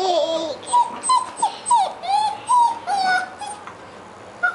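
Two-month-old German Shepherd puppy whimpering: a run of short, high whines that bend in pitch, stopping about three and a half seconds in.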